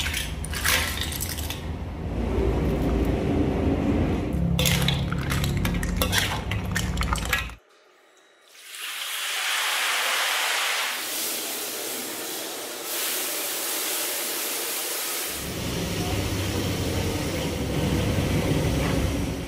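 Cooking in a wok over a gas burner: clinking pots and utensils as seafood is tipped in, with a low hum underneath. After a brief silent cut about 8 seconds in, hot oil in a wok sizzles and bubbles with a steady, high hiss for several seconds, then the busier kitchen clatter returns.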